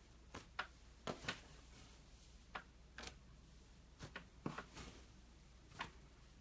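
Cloud slime being handled: faint, irregular little crackles and pops, about a dozen scattered through.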